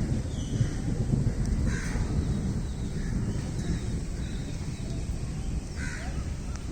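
Heavy rain making a steady low rush, with a bird calling a few times over it, most clearly about two seconds in and again near the end.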